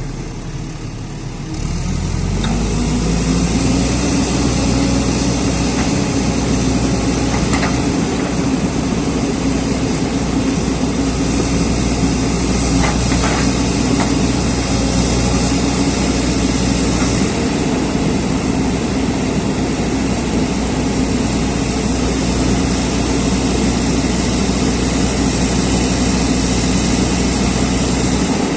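JCB excavator's diesel engine revving up about two seconds in, then running steadily at high revs, with a few faint knocks.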